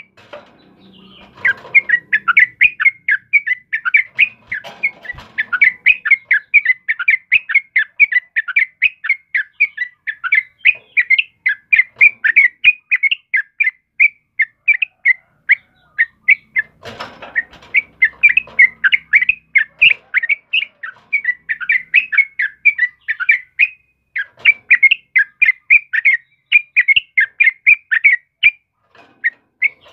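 Yellow-vented bulbul (trucukan) song: a loud, continuous stream of short, rapid chattering notes, several a second, broken briefly by a noisy rustle about a second in and again about halfway.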